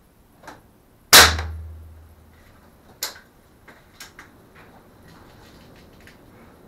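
A .177 G-Force TAC break-action air rifle fires once: a sharp crack with a low ringing that dies away over about a second. A sharper click and a few lighter ticks follow.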